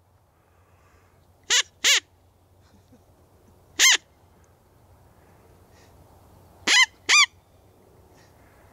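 Coyote call imitating coyote yips: five short, sharp barks, each rising and falling in pitch, two in quick succession, one a couple of seconds later, and another quick pair near the end, over faint open-air background.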